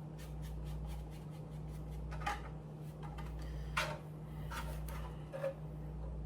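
A steady low hum with a run of faint ticks and small rubbing noises, and a few sharper clicks spread through the second half, like small objects being handled on a work surface.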